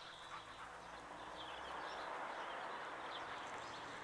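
Small birds chirping faintly in the background over a steady outdoor hiss that swells a little in the middle.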